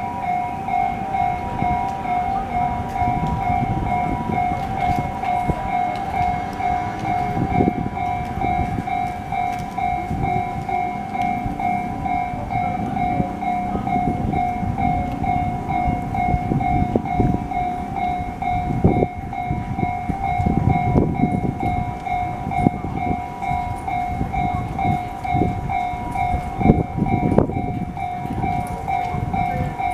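Japanese level-crossing alarm, the JR standard electronic bell tone, ringing over and over without a break. A train passes through the crossing with a low rumble and wheel clatter on the rails, busiest in the second half.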